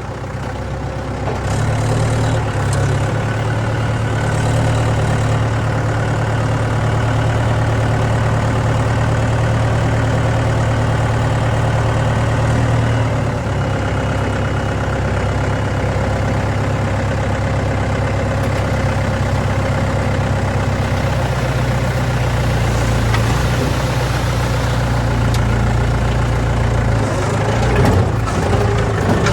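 Heavy diesel engine of earthmoving machinery running steadily; its note shifts about 13 s in and again about 21 s in.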